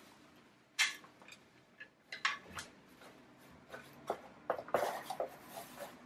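Wood-shaving bedding and hay being scooped up and pushed around by hand in a plastic hamster cage: dry, irregular rustling and crackling. There is a sharp crackle less than a second in, and the rustling is busiest in the second half.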